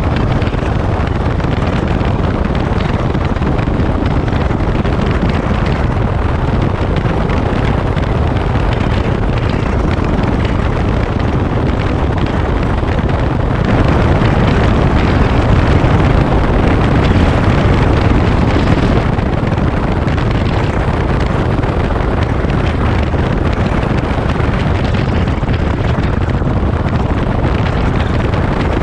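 Motorcycle riding noise at road speed: steady wind rush over the microphone mixed with the Daelim Daystar cruiser's engine running, growing a little louder for several seconds about halfway through.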